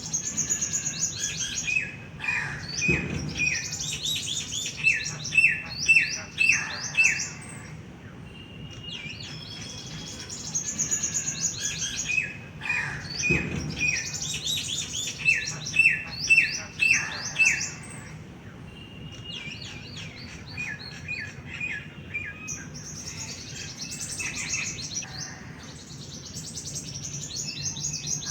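A songbird singing, three long, similar song phrases about ten seconds apart, each made of high chirps, quick trills and a run of short, clear down-slurred notes.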